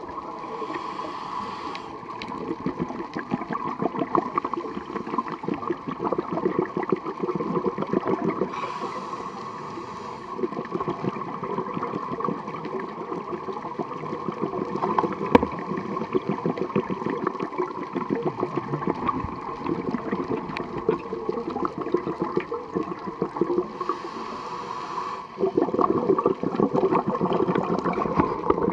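A scuba diver breathing through a regulator underwater: continuous bubbling and gurgling of exhaled air, with short hisses about a second in, around nine seconds and again near the end.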